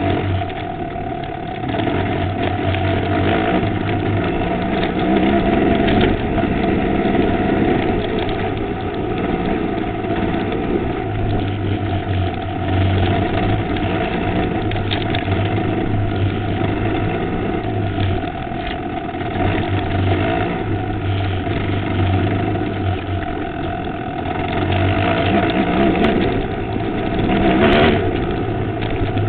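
Enduro motorcycle engine running loud and continuously under changing throttle while riding a rough dirt trail, heard from a camera mounted on the bike, with scattered knocks from the bumps.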